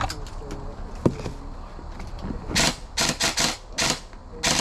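Airsoft electric gun firing about six short, sharp shots at uneven spacing in the second half, after two lone clicks near the start. The shooter takes the uneven firing for a few misfeeds.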